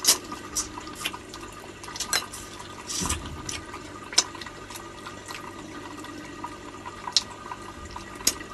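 Close-up wet eating sounds of crab eaten by hand: slurping and sucking meat and juice from the shell and fingers. Irregular lip smacks and clicks, a few of them louder.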